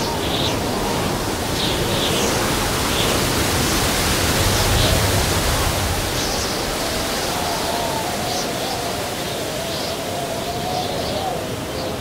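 Strong desert wind blowing steadily, with a low wavering howl rising through the second half. Short high chirps come and go over it.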